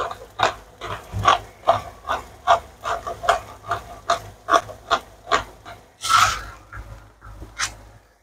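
Ground pepper being shaken from a small container over a wok: a dry rasp repeated about two or three times a second, with a louder scrape about six seconds in.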